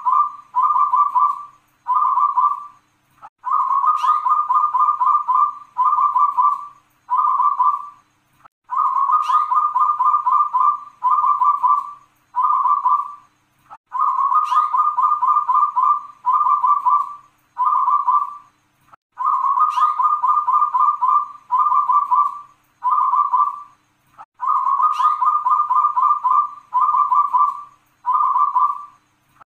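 A local zebra dove (perkutut) cooing its full song over and over. Each phrase is a long rolling coo followed by three shorter "kung" notes, and the phrase repeats about every five seconds, five times.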